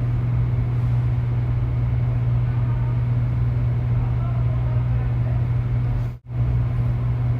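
Steady low machine hum that drops out for an instant about six seconds in, then carries on unchanged.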